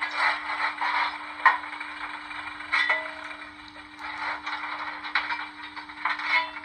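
Steam-locomotive sound from a Locoman DCC sound project for a Stanier 8F, played through a small speaker in the model's tender while the locomotive stands still: uneven hissing with a few sharp metallic clanks, over a steady low hum.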